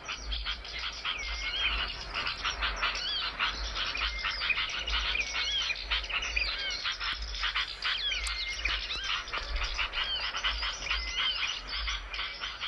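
Small songbird's rapid, continuous twittering: dense chirps with quick rising and falling whistled notes, over a low hum.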